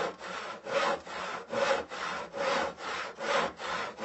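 A small saw cutting through a pumpkin's shell, in quick even back-and-forth strokes of about two and a half a second.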